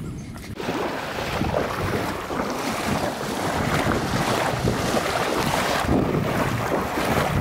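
Wind blowing across the microphone: a steady rushing noise, heaviest in the low end, that starts abruptly about half a second in.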